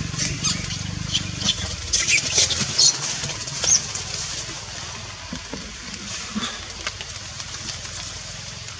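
A motor engine's low, pulsing run fading away within the first second. Over a steady hiss, a flurry of short high-pitched chirps follows in the first four seconds, the last a brighter chirp.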